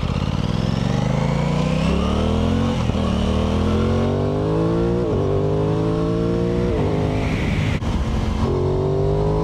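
Aprilia Tuono 660 Factory's parallel-twin engine accelerating hard through the gears, its note climbing in pitch and dropping quickly at each upshift, about three times.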